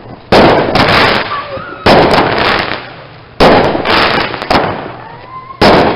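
Consumer fireworks going off: four loud bangs about a second and a half apart, each followed by a dense crackle that dies away, with a faint rising whistle just before the last bang.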